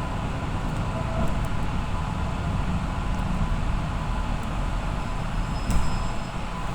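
Suburban electric train heard from inside the carriage while it runs along the track: a steady low rumble of wheels and running gear with a faint thin steady tone.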